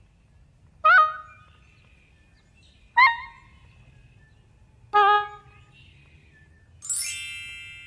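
Electronically altered sound effects from a children's video: three short pitched sounds about two seconds apart, each sliding sharply up at its start, then a longer ringing tone near the end that slowly fades.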